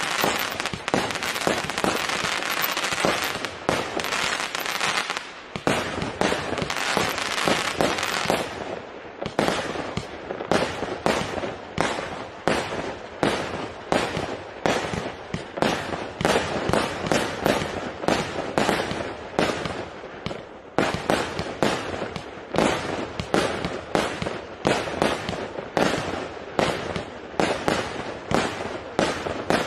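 A 168-shot, 0.8-inch-calibre firework cake firing. For about the first eight seconds the shots overlap into a dense, continuous rattle. After that, single shots go off one by one at about two a second.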